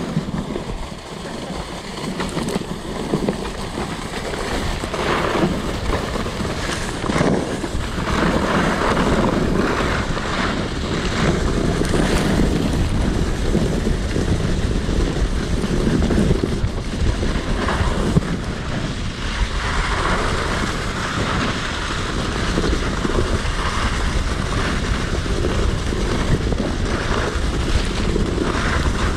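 Wind rushing over the microphone, mixed with the skibob's skis hissing and scraping over packed, tracked snow on a downhill run. It grows louder a few seconds in and stays up as the ride picks up speed.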